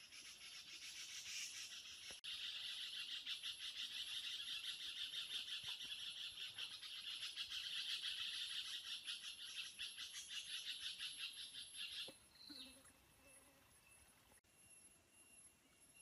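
A forest insect buzzing in a fast, even stream of pulses, high-pitched. It builds over the first couple of seconds and cuts off suddenly about twelve seconds in. A short falling chirp follows, over a thin steady high whine.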